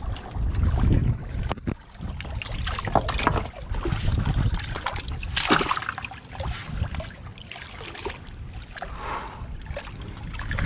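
Water sloshing and lapping among shoreline rocks, with wind buffeting the microphone as a heavy low rumble. A few sharp knocks and scrapes are scattered through it, loudest about one and a half, three and five and a half seconds in.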